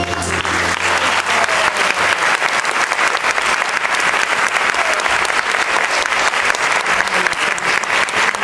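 Audience applauding with dense, steady clapping, starting just as the backing music stops.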